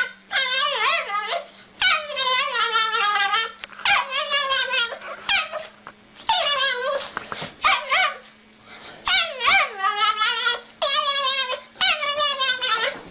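A dog whining and yowling in a long series of about ten drawn-out, warbling calls, the pitch sliding up and down within each call, with short gaps between them.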